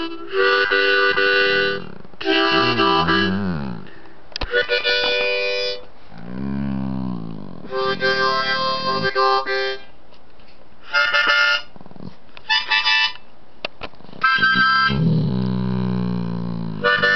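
Harmonica played in short held chords, with a dog humming along in low, wavering, rising-and-falling howls between and under the chords.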